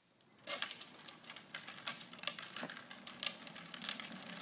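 Plastic wheels of a child's tricycle rolling over a concrete driveway: a rapid, uneven clattering of small clicks that starts about half a second in.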